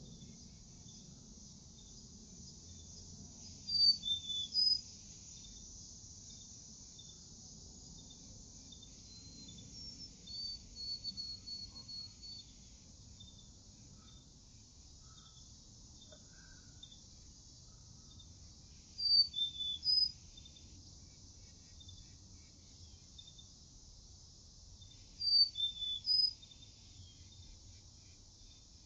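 Insects chirping steadily with a high hiss behind them. A bird cuts in with a short phrase of three or four sharp, high notes, heard three times: about four seconds in, about two-thirds through, and near the end. A quieter, faster run of bird notes comes in between.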